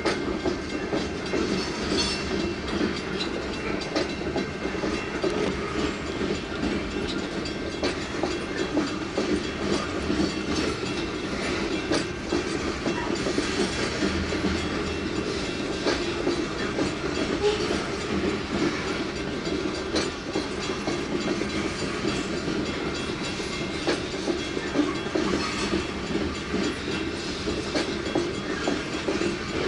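Covered hopper cars of a long grain train rolling past a crossing: a steady rumble of wheels on rail with scattered clicks over the rail joints.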